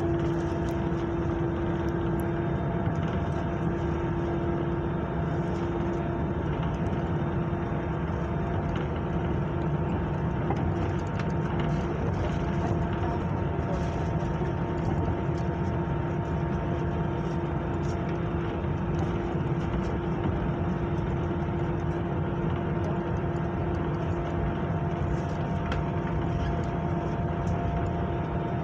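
Steady hum and rumble of an airliner heard inside the cabin before takeoff, with a few constant humming tones from the aircraft's engines and air system.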